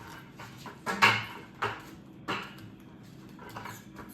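Buckets knocking and clattering as they are stacked: a few sharp knocks, the loudest about a second in.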